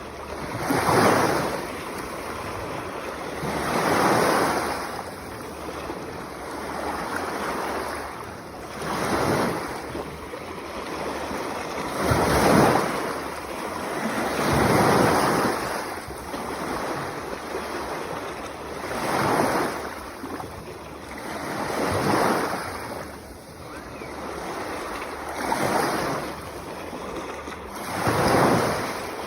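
Sea waves washing onto the shore, each surge swelling and falling back every few seconds in a steady rhythm.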